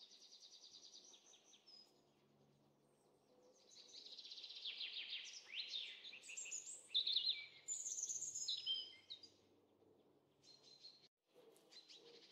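Songbird singing: a short rapid trill near the start, then a long, loud run of varied chirps, trills and falling whistles from about four to nine seconds in, with fainter calls near the end.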